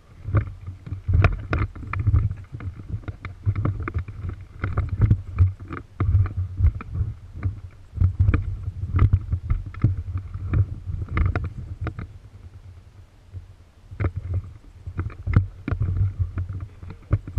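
Irregular low rumbling and knocks on the microphone, about one or two a second, dipping for a couple of seconds past the middle.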